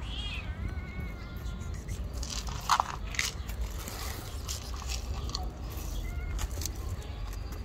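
Cats crunching dry cat food, with a meow in the first second or so. Scattered sharp clicks and rattles follow as the kibble is shaken in a plastic cup and tipped onto the paving stones.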